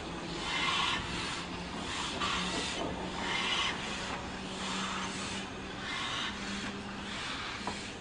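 Steam locomotive moving slowly, making rhythmic rasping bursts about once a second over a steady low tone.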